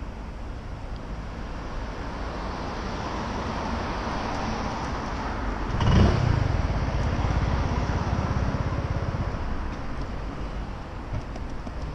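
Honda PCX 125 scooter's single-cylinder engine idling while stopped, with a steady traffic hum around it. About halfway through there is a sudden loud low knock, after which the engine's low, even pulsing is stronger for a few seconds.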